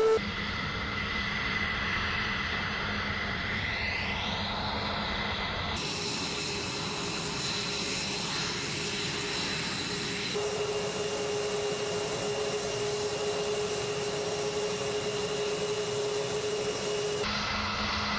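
Jet fighter engines running with a steady rumble and high whine, the sound changing abruptly every few seconds as it cuts between recordings. About four seconds in, one whine rises in pitch.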